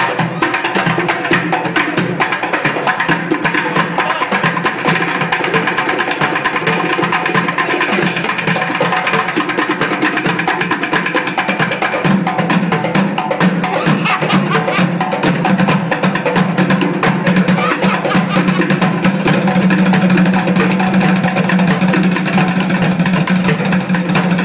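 Bucket drumming: drumsticks beating fast, dense rhythms on upturned plastic buckets, with a hand-played djembe alongside. A steady low hum sits underneath from about halfway through.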